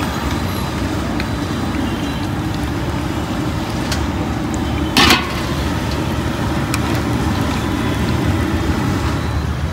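Battered fritters deep-frying in a wide iron kadai of hot oil: a steady sizzle over the low roar of the LPG burner beneath it. About halfway through there is one short, louder burst of noise.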